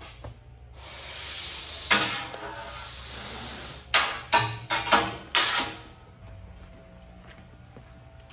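A rolled wet rug sliding out of a rug wringer's metal spin tube with a scraping hiss for a couple of seconds, broken by one sharp knock. Then five sharp knocks in quick succession as the steel rod and rug roll bang against the tube's metal end.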